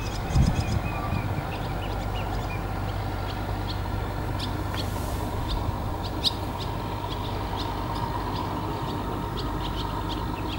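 Scattered short bird chirps over a steady low rumble from a distant narrow-gauge train hauling a rake of wagons.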